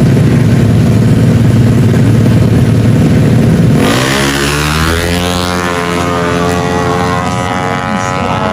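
Tuned 155cc automatic scooter drag bike engine held at high revs, then launching about four seconds in: its pitch climbs steeply and then holds high as the bike pulls away down the strip.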